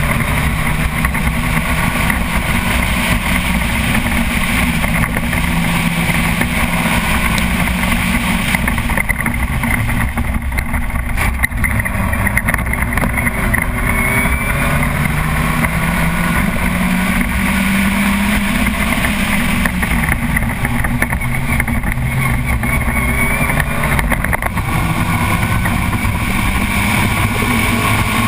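Formula Vauxhall Junior racing car's engine heard from on board under hard acceleration, its pitch rising again and again and dropping back as it is driven up through the gears.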